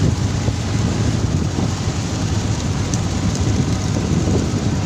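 Steady low rumble of a fishing boat under way, its engine and hull moving through the sea, with wind buffeting the microphone and a hiss of water spray.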